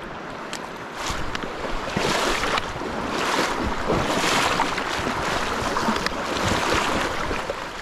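Water splashing and swishing in uneven surges, with a few short sharp splashes.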